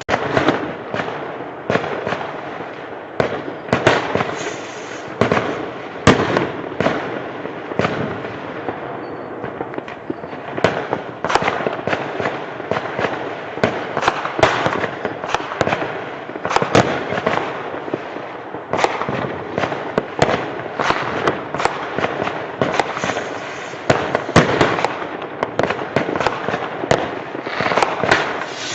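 Fireworks and firecrackers going off in a dense, continuous barrage of overlapping bangs and cracks.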